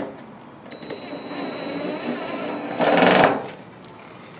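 Cordless drill driving a half-inch self-piercing screw into an aluminum gutter end cap: the motor runs steadily with a thin high whine for about two seconds, then a louder, rougher burst about three seconds in as the screw goes through the aluminum and seats.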